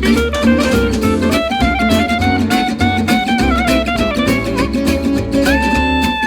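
Background music: a fiddle melody over plucked guitar with a steady beat, one note held for about a second near the end.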